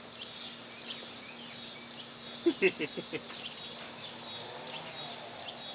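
Insects trilling steadily at a high pitch, with short repeated chirps about twice a second. A brief voice-like sound comes about two and a half seconds in.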